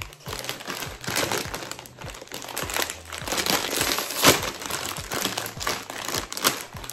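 Plastic snack bag of lime Flamin' Hot Cheetos crinkling as it is handled and pulled open, with the sharpest crackle about four seconds in.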